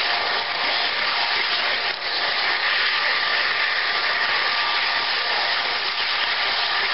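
Model train running fast along the track: a steady, unbroken whir of its wheels and motor, heard from a camera riding on one of its cars.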